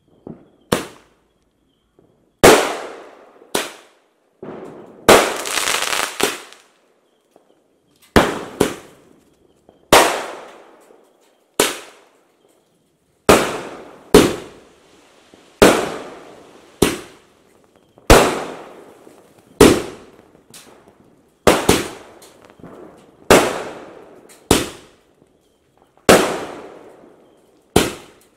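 A multi-shot sky shot firework cake (Supreme Fireworks 'Rock Dance' 30-shot multi-colour) firing in sequence: a sharp bang every one to two seconds, each trailing off in a short echo, with a denser run of reports about five seconds in.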